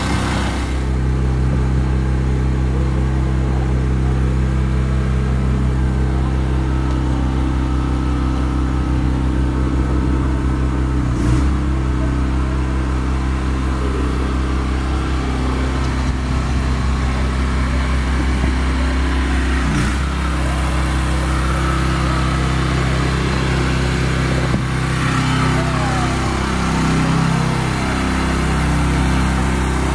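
Engine-driven hydraulic pump running steadily, with two sharp knocks about 11 and 20 seconds in and the engine pitch wavering near the end.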